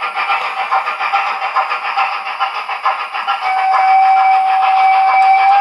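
Model steam locomotive's sound decoder playing through a small Dumbo loudspeaker: regular steam chuffing, then a long steam whistle about three and a half seconds in that is the loudest sound and carries on.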